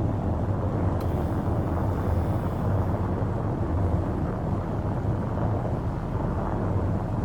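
Suzuki Jimny JB74 driving on snow, its BFGoodrich KM3 mud-terrain tyres and drivetrain making a steady low drone with a snowy rushing noise over it. A brief click about a second in.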